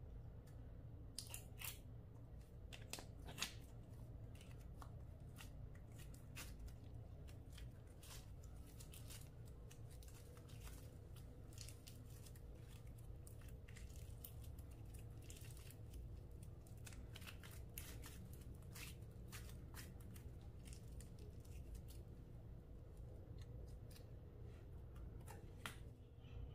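Clear slime being worked by hand, with an irregular run of small sticky clicks and pops as it is folded and squeezed, over a faint steady low hum.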